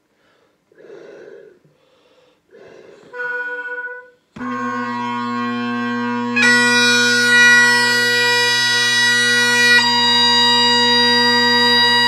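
Great Highland bagpipe being struck in. Breaths fill the bag and a brief note sounds, then the drones come in all at once a little over four seconds in. The chanter joins about two seconds later, holding steady high notes over the drones, with a change of note near the end.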